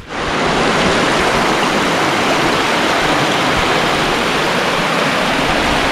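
Rushing river water: a steady, loud wash of moving current that starts abruptly.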